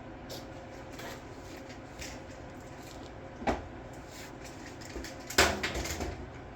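A single sharp knock about halfway through, then a louder cluster of clunks and rattles near the end, over a steady low hum.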